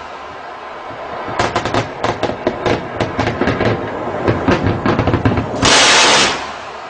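Shipboard machine-gun fire: rapid shots in uneven bursts starting about a second and a half in, followed near the end by a louder blast of noise lasting over half a second.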